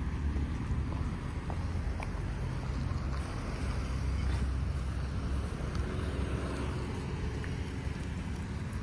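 An SUV driving slowly past at close range, its engine and tyres heard over a steady low rumble of wind on the microphone, loudest about halfway through.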